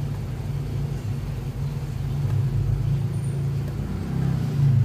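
A wire hand whisk beating thick batter in a glass bowl, under a steady low hum that grows louder about four seconds in.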